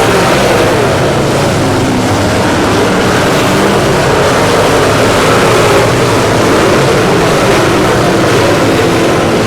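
Dirt late model race cars' V8 engines running hard on track, their pitch wavering up and down over a steady wash of noise.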